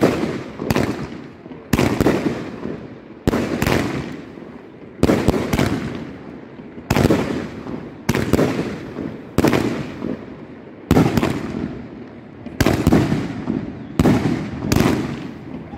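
Consumer fireworks battery firing a rapid series of aerial shots: sharp bangs about once a second, some in quick pairs, each trailing off before the next.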